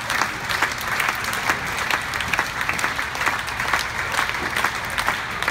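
Audience applauding: many hands clapping at once, a dense, steady patter of claps.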